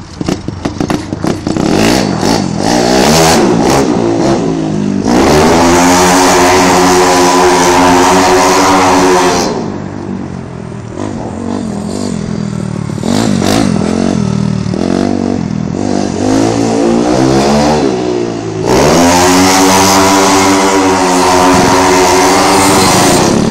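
Speedway motorcycle engine push-started, popping unevenly as it catches, then running. Twice it revs up loud, with the pitch climbing, holding for a few seconds and falling away.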